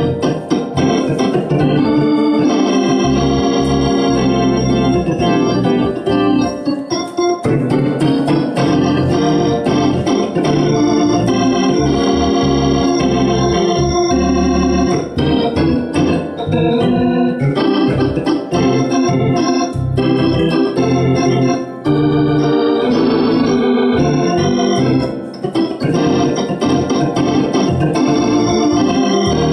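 Hammond-style two-manual drawbar organ played with both hands: sustained chords over low bass notes, with a few brief breaks between phrases.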